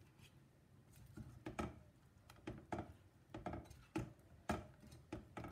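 Silicone spatula stirring sliced strawberries and syrup in a stainless steel saucepan: soft, uneven knocks and scrapes against the pan, about two a second, starting about a second in.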